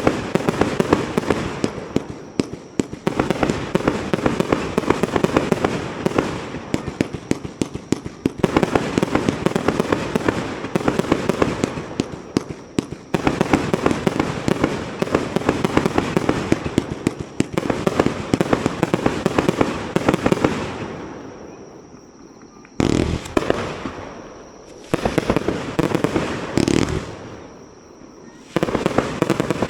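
Fireworks display: a dense run of rapid crackling bangs and pops for about twenty seconds, then it thins out and four separate booms follow near the end, each fading away.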